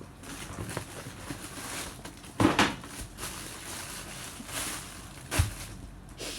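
Packaging being handled and rustled while storage boxes are unboxed, with two sharper knocks, one about two and a half seconds in and one about five and a half seconds in.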